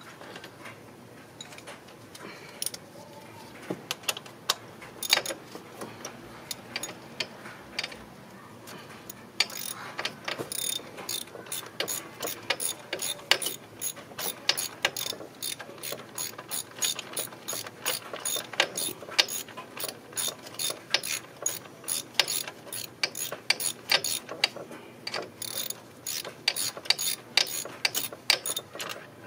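Hand ratchet clicking as a new spark plug is run down into the engine with a 5/8 spark plug socket on an extension. There are a few scattered clicks at first, then quick, steady clicking from about ten seconds in.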